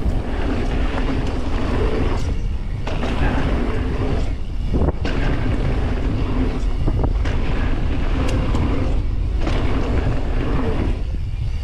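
Wind rushing over the camera microphone as a mountain bike rolls down a loose gravel-and-dirt trail, the tyres crunching over the surface, with a few short knocks and rattles from the bike over bumps.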